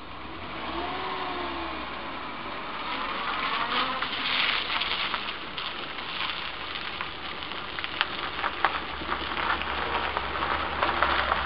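Small hatchback's engine running with some revving as it pulls away, and tyres crunching over grit and small stones. It grows louder as the car comes close.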